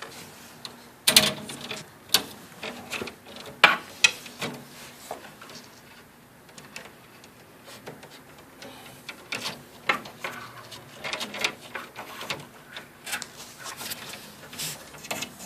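Irregular clicks, taps and knocks of small light-fixture parts being handled and fitted together as the down tube cover is worked onto the down tube, with a cluster of sharp knocks a second or two in and more through the second half.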